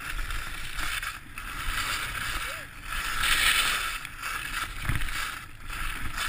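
Skis hissing and scraping over snow, swelling and fading every second or two through the turns, with low wind rumble on the microphone.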